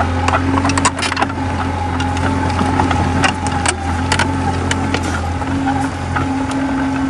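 Komatsu D20A bulldozer's diesel engine running steadily, with scattered sharp clanks and knocks throughout.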